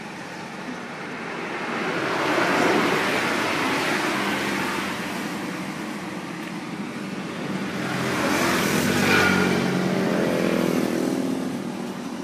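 Road traffic passing: one vehicle swells past about two seconds in and fades, and a second, louder one with a clear engine note goes by about eight seconds in.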